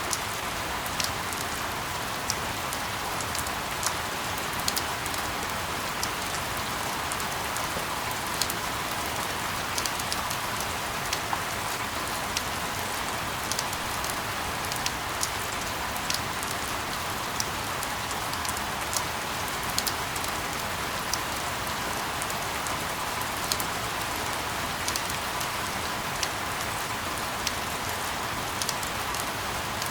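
Steady rain sound used as sleep noise: an even hiss with frequent, irregular sharp ticks like drops striking a surface, unchanging throughout.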